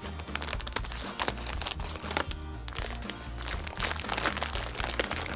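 Clear plastic bag crinkling in the hands with many quick crackles as kinetic sand is tipped out of it, over background music with a steady low bass line.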